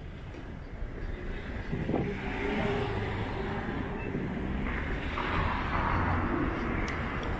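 Car traffic passing on a city street, with tyre and engine noise swelling about two seconds in and again about five seconds in over a steady low rumble.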